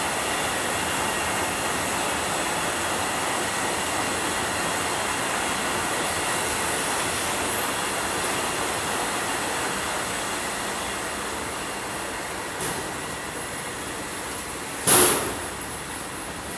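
Hwasung Cleantech industrial washing machines running: a steady mechanical drone and hiss with faint high whining tones, gradually quieter over the second half. A brief loud hiss cuts in about fifteen seconds in.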